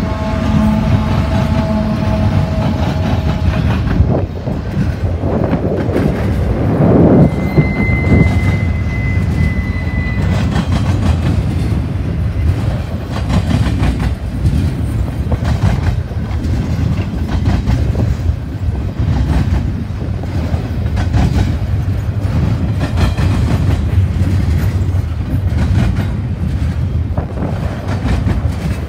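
Double-stack intermodal freight train passing close by: steady tones from the passing GE ET44AC locomotive fade out a few seconds in, leaving a continuous rumble of the well cars with the clickety-clack of wheels over rail joints. A brief faint wheel squeal comes about eight seconds in.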